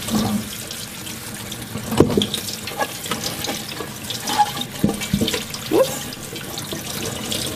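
Kitchen tap water running over broccoli florets in a metal steamer pot in a stainless steel sink, with hands stirring the florets under the stream. A few short knocks and clinks stand out, about two seconds in and again around five and six seconds.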